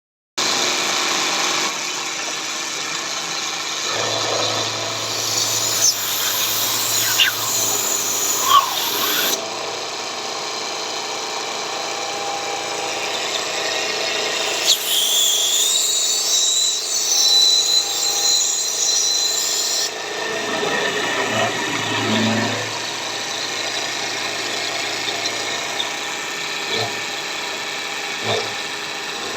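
CNC machine running and cutting a mould, with a steady machine whine throughout. A harsher, high-pitched cutting sound comes in for a few seconds twice, then drops back.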